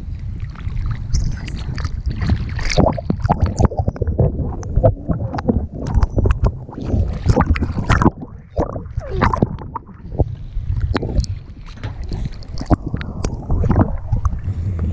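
Water splashing and gurgling against a GoPro's housing as it bobs at the sea surface, dipping under and back out, with a constant low rumble of water on the case.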